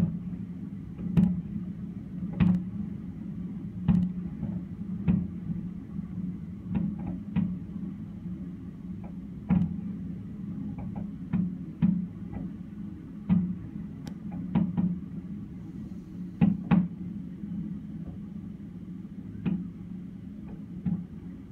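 Aerial fireworks shells bursting as a string of sharp booms and cracks at irregular intervals, sometimes two within a second, over a steady low hum.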